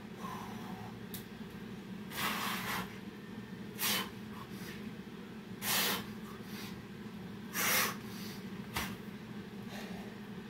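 A man breathing hard from the exertion of burpees: four sharp, hissy exhalations about two seconds apart, with a light knock near the end, over a steady low hum.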